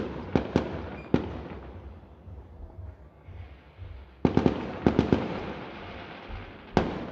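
Fireworks shells bursting in a series of sharp bangs, each trailing off in a fading rumble. There are four in the first second, a quick cluster about four to five seconds in, and a single bang near the end.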